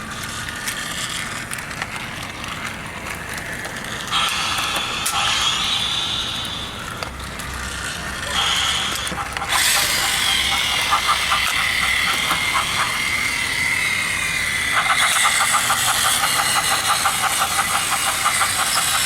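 Battery-powered Trackmaster remote-control Thomas toy trains running on plastic track: a steady high electric-motor whine with a fast, even rattle of wheels and gears. It gets louder in several steps as the trains speed up.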